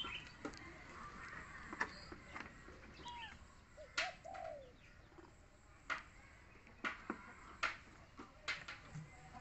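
Faint short animal calls, a few rising and falling in pitch, among scattered sharp clicks.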